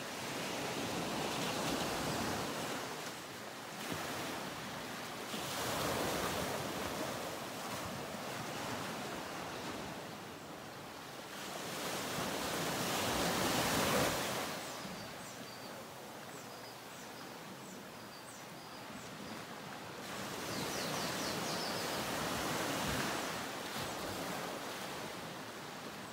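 Ocean surf: waves washing in and drawing back in slow swells every few seconds, the loudest swell about halfway through.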